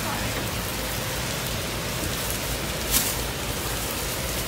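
Heavy rain pouring down, a steady even hiss, with one sharp tap about three seconds in.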